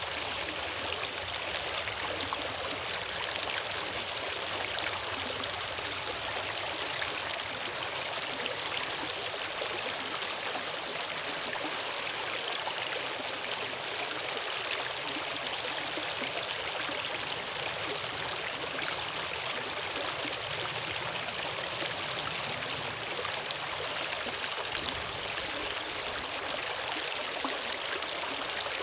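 Steady rushing of running water, unchanging throughout.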